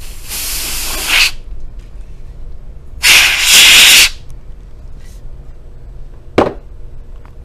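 Canned-air duster spraying in two bursts of about a second each, the second louder, with one sharp click near the end.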